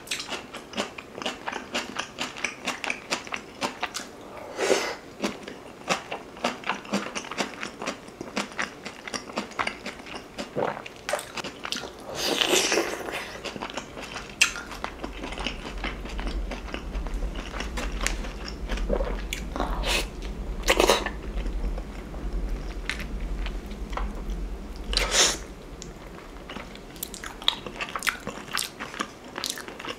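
Close-miked chewing and biting of beef short-rib meat gnawed off the bone, a stream of soft, wet mouth clicks. A few louder, longer mouth sounds stand out, about four times.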